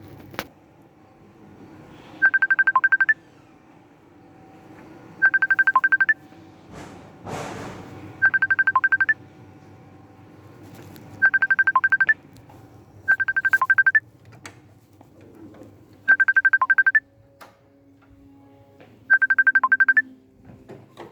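Electronic ringtone-like trilling: seven short bursts of a rapidly pulsing beep, each under a second, repeating about every three seconds over a low hum, with a brief rushing noise about seven seconds in.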